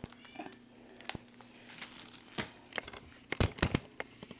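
Light handling of a laptop bag and its strap: scattered small clicks and knocks, with a cluster of sharper clicks about three and a half seconds in.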